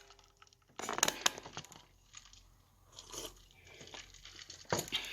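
Clusters of sharp clicks and crinkling handling noise, one about a second in and another near the end, with faint rustling between.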